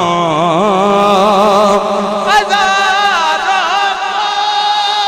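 Male naat reciter singing a long, drawn-out ornamented phrase without clear words. His pitch wavers through held notes and leaps higher about halfway through.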